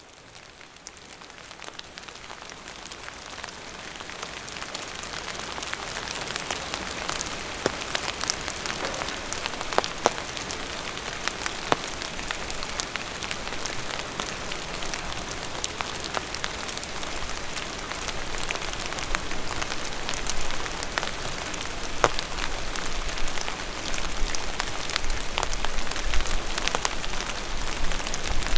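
Steady rain falling, with scattered louder drops striking sharply among the patter; it fades in over the first few seconds.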